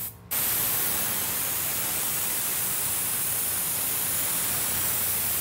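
Airbrush spraying paint: a steady, even hiss of air that starts suddenly just after the beginning and holds without a break.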